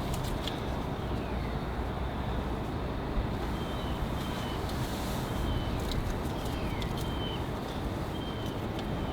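Steady low rumble of outdoor background noise, with faint short high chirps and a few light clicks.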